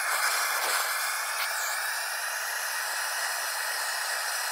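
Handheld propane torch running at full flow, a constant rushing hiss, as its flame is played into the wood in a smoker's firebox to light the fire.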